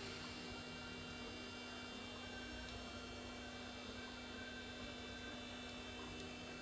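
Steady faint electrical hum with light hiss; no distinct handling clicks or snaps.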